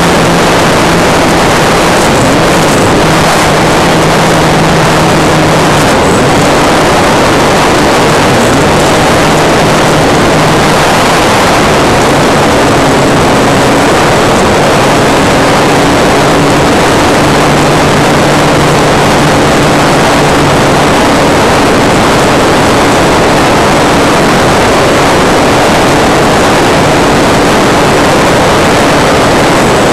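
Sound from a small camera riding on a radio-controlled model plane in flight: loud, steady wind rush over the microphone with the hum of the motor and propeller underneath, its pitch stepping up and down a few times.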